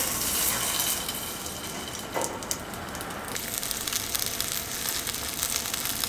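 Bacon frying in canola oil in a pan set over a propane heater: a steady crackling sizzle, a little louder in the first second, with a couple of faint clicks about two seconds in.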